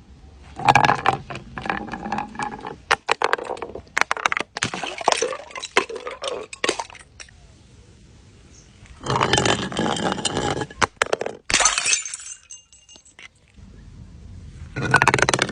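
Glass being crushed and broken, in about five bursts of dense crunching and clinking separated by short pauses. A brief faint ringing follows one of the later bursts.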